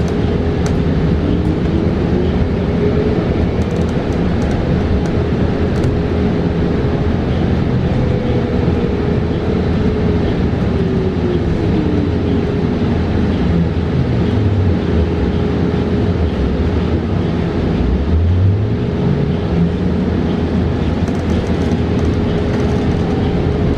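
Cabin of a 2022 New Flyer XE40 battery-electric bus on the move: steady road and tyre rumble, with the electric drive motor's whine rising as the bus speeds up, sliding steadily down as it slows right down about two-thirds through, then rising again as it pulls away. A steady high hum runs under it throughout.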